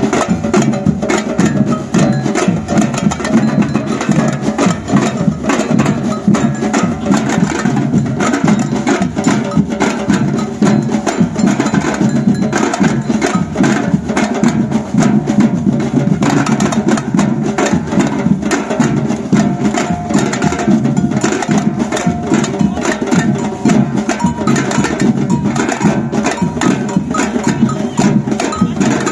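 Batucada percussion band playing a dense, steady samba rhythm: deep drums under a bright bell or wood-block pattern.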